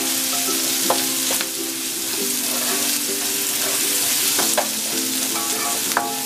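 Diced onion and garlic sizzling in hot oil in a nonstick wok, stirred and turned with a plastic slotted spatula. A few sharp clicks of the spatula against the pan come about a second in and near the end.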